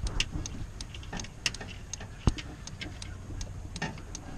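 Scattered light clicks and taps at uneven intervals, one sharper click a little past two seconds in, over a faint steady low hum.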